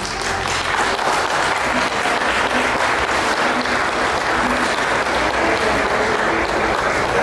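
A congregation applauding: many hands clapping, building up at the start and then holding steady.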